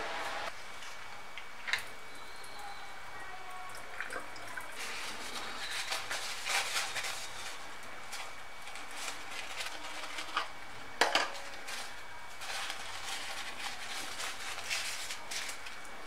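Hands rubbing a pair of bicycle disc brake pads dry in a paper towel: crinkling and rustling paper with a few sharp clicks, the loudest a little after ten seconds in.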